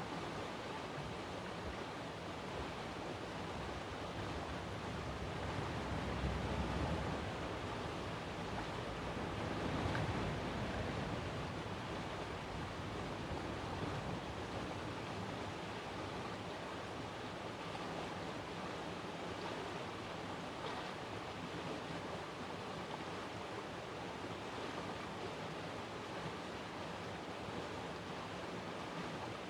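Steady rushing outdoor background noise with no siren tone sounding, swelling slightly about six and ten seconds in.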